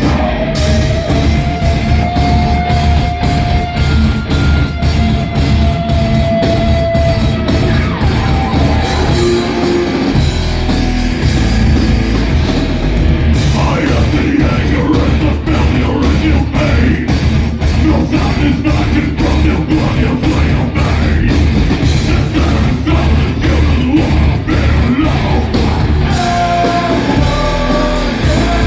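Live heavy rock band playing loud: distorted electric guitars, a drum kit and bass, with yelled vocals.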